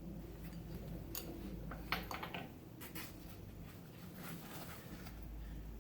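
Faint scattered clicks and light taps, one a little sharper about two seconds in: a breaker bar and socket being fitted onto a car's wheel lug nut.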